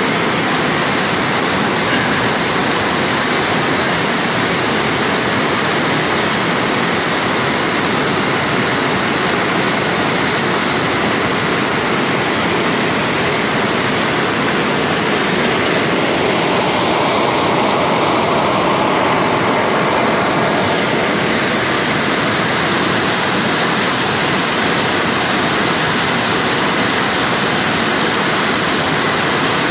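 River in full flood: a fast torrent of muddy floodwater rushing and churning, a loud, steady rush of water.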